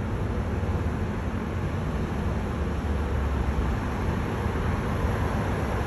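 Steady road traffic noise from a busy city boulevard: a continuous low rumble with no distinct events.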